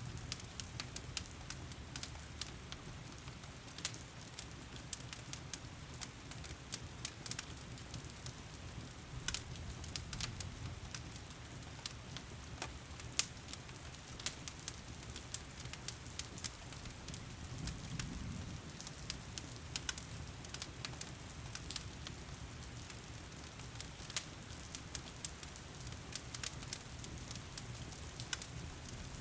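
Wood fire crackling with frequent irregular pops and snaps over a steady hiss of heavy rain.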